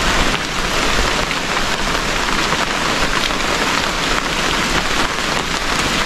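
Steady rain, drops pattering on an open umbrella held close and on the surrounding leaves, with a dense continuous hiss.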